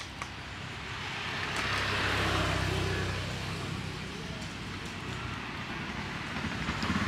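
A motor vehicle passing by: engine hum and road noise swell to a peak about two seconds in and fade away, and another engine grows louder near the end.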